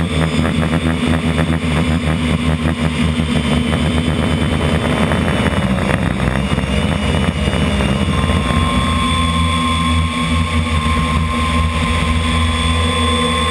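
Model aircraft's motor and propeller running steadily, heard from the onboard camera: a continuous loud drone with a high whine that shifts in pitch a few seconds in, and a new higher tone joining about eight seconds in.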